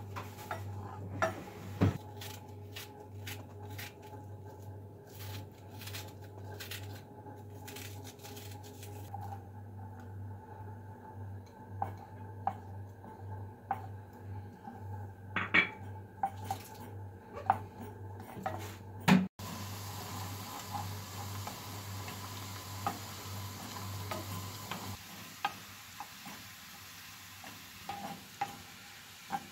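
A wooden spoon stirring and scraping in a frying pan, knocking against the pan again and again, as butter and chopped onion cook. After a cut, flour roasting in the butter sizzles faintly under the stirring, and a low steady hum in the background stops near the end.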